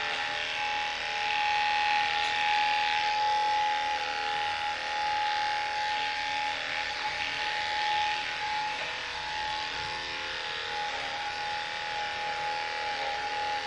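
Electric dog grooming clippers running with a steady high hum while clipping a dog's fur.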